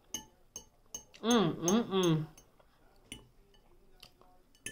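A metal fork clinks and scrapes against a ceramic bowl several times as food is picked up, each strike short with a brief bright ring. About a second in there is a short hummed or spoken vocal sound.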